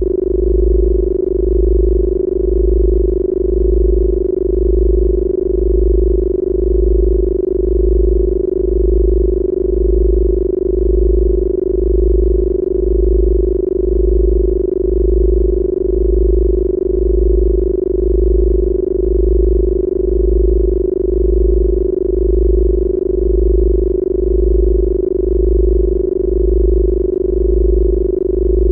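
Synthesized Rife healing-frequency track: a steady pure tone held without change, over a low hum that pulses about once a second.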